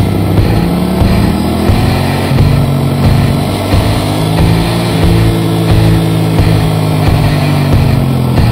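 Motorcycle engine under way, its pitch climbing over the first few seconds as it accelerates, breaking about four seconds in, then coming back higher and slowly easing off, over a steady rushing noise.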